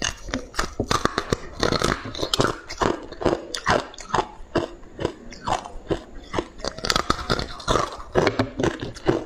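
Close-up crunching and chewing of hard ice blocks: irregular sharp cracks of teeth breaking ice, several a second, picked up by a clip-on microphone at the chest.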